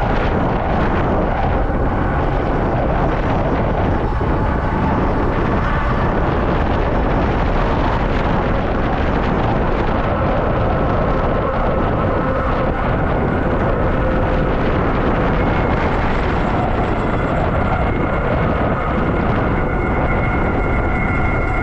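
Loud, steady wind rush on the camera microphone from an electric bike speeding downhill, with a faint steady whine running under it.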